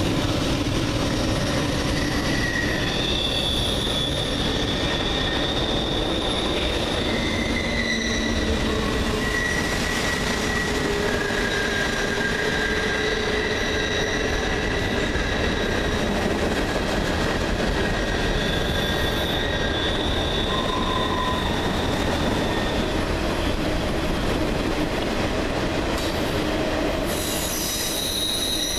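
Two long freight trains rolling past each other on a curve: a steady rumble of steel wheels on rail, with high-pitched wheel squeals that hold for several seconds and come and go, and a fresh squeal starting near the end.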